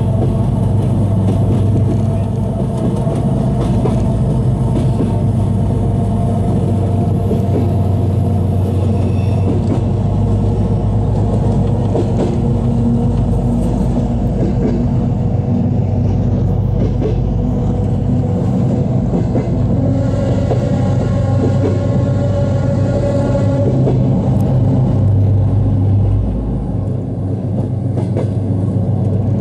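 Steady low rumble of a passenger train running along the track, heard from inside the carriage, with scattered clicks from the wheels and rails. About two-thirds of the way through, a high steady whine sounds for a few seconds.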